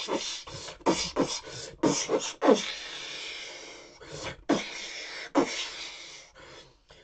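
A man imitating an explosion with his voice: a string of sharp mouth-made blasts with falling pitch and rushing breath. About two and a half seconds in, one long hiss dies away slowly, then a few more blasts follow and fade out near the end.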